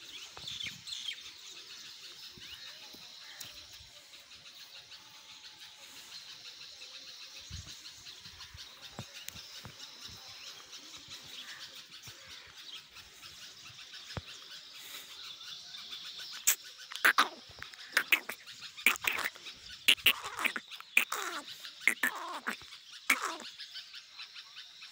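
Birds chirping faintly in the background. Past the middle comes an irregular run of about fifteen loud, sharp clicks and knocks over some seven seconds.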